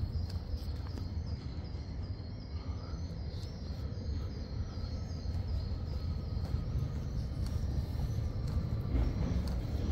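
Outdoor city street ambience: a steady low rumble of traffic, with a faint high chirp repeating a few times a second.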